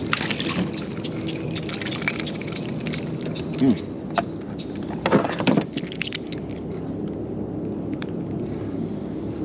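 A hooked bull bream splashing at the surface beside a kayak and swung aboard on the line, with small clicks and, about five seconds in, a loud cluster of knocks and rattles as the fish is handled.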